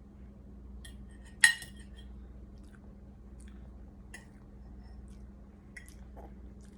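A spoon clinking against a dish: one sharp, ringing clink about a second and a half in, then a few lighter clicks.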